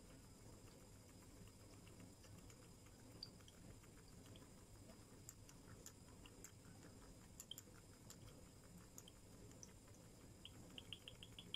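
Near silence: room tone with a few faint scattered ticks, a little more frequent near the end.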